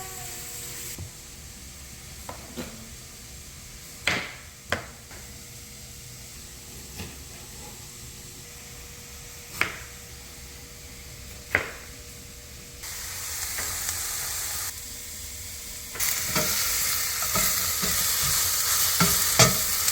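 Onions and bell peppers frying in a pan, sizzling steadily, while a spoon stirs them and now and then knocks sharply against the pan. The sizzling grows much louder in the last third.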